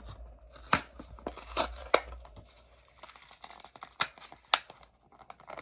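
A Hot Wheels blister pack being torn open: the cardboard card tears and the plastic blister crinkles, with several sharp snaps.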